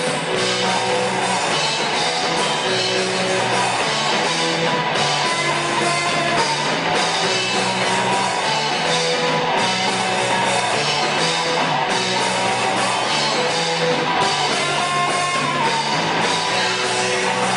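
Rock band playing: electric guitar, bass and drum kit, loud and steady, with no singing heard.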